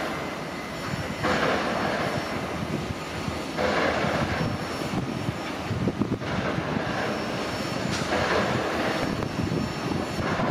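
Regional electric multiple unit running through the station tracks: a steady rumble with a hissing swell roughly every two and a half seconds.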